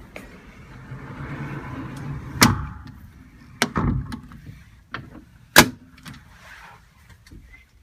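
Sharp clicks and a dull thump of a door handle and latch being worked, with a brief rushing noise before the first loud click; the loudest clicks come about two and a half and five and a half seconds in.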